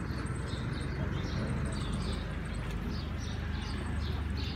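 Outdoor village ambience: a steady low rumble with small birds chirping repeatedly.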